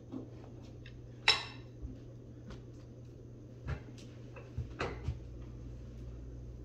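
A few scattered light knocks and clicks over a steady low hum. The loudest is a short, ringing metallic clink about a second in, and a small cluster of softer knocks comes near the end.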